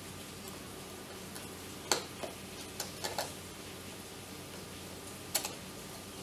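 Screwdriver turning small screws into the plastic male holder (base power connector) of an Orpat OEK-8127 electric kettle. A handful of sharp ticks and clicks come about two to three seconds in, and one more near the end, over a faint steady hum.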